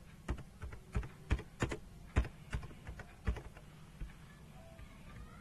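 Computer keyboard being typed on: about a dozen separate, uneven keystrokes over the first three seconds, then a single key press about four seconds in.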